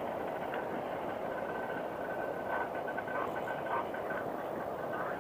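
Arctic Cat Panther snowmobile running steadily under way on snow, with a thin high whine flickering on and off in the middle.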